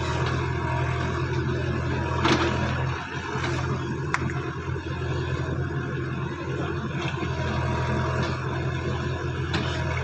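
Tractor diesel engine running steadily as it works a rear-mounted backhoe digging soil, with a couple of brief clicks about two and four seconds in.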